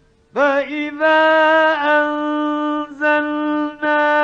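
A male Quran reciter chanting in the melodic mujawwad tajweed style, entering about a third of a second in and holding long, steady notes with slight ornamental wavers, broken briefly twice for breath. The sound is an old radio recording, with a faint hum before the voice comes in.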